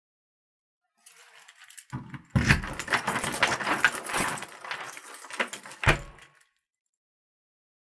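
A door rattling and clattering, as if its handle or lock is being shaken hard, for about four seconds with many sharp clicks and knocks. It ends in a single thud.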